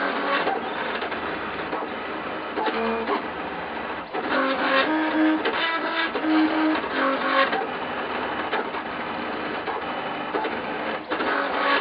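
Trinity Labs Aluminatus 3D printer running a print: its lead-screw-driven stepper motors hum in short steady tones that jump to a new pitch with each move of the print head.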